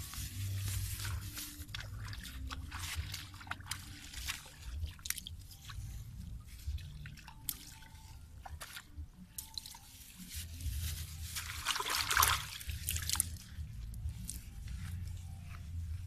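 Wet hands handling a clear plastic bag beside a pool of muddy water: scattered crinkles and crackles with small drips and squelches, and a louder burst of crinkling about twelve seconds in. A low rumble runs underneath.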